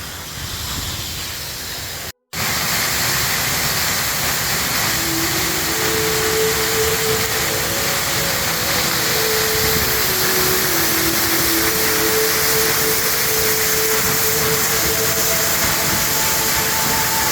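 Waterfall's rushing water, a steady loud hiss of falling water; after a brief break about two seconds in it comes back louder and closer. Slow held notes of background music sound over it from about five seconds in.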